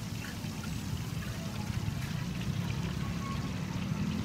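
Deep-frying in a large wok: hot oil bubbling steadily around battered fritters, over a constant low rumble.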